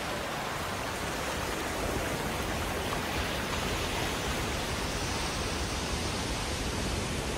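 Heavy ocean surf breaking over shore rocks, a steady rush of churning white water.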